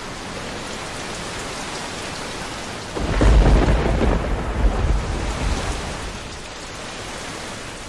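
Heavy monsoon rain falling steadily, with a roll of thunder that starts about three seconds in, rumbles for a couple of seconds and fades.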